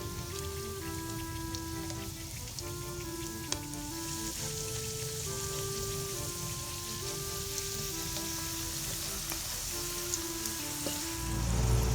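Food sizzling in hot oil with scattered sharp pops, under a simple background tune of held single notes. A louder low rumble comes in near the end.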